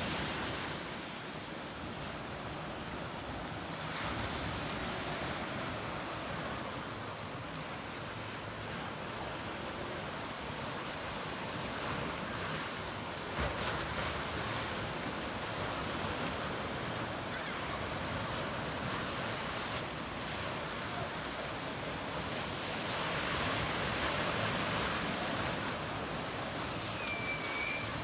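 Black Sea waves washing onto the shore, a steady surf that swells and eases every few seconds. A short click about halfway through and a brief high chirp near the end.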